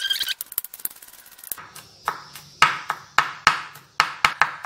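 Kitchen knife chopping crushed garlic on a wooden cutting board. From about two seconds in come repeated sharp chops, two to three a second, after a brief ringing note at the very start and a few light clicks.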